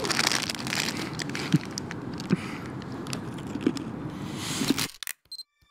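Rustling, crinkling noise with a few scattered sharp clicks, cutting off abruptly about five seconds in.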